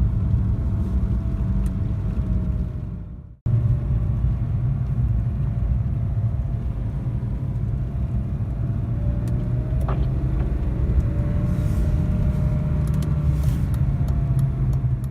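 Cabin sound of a BMW E36 M3 being driven: the straight-six engine and drivetrain running with a steady low rumble and road noise. The sound cuts out for an instant about three seconds in.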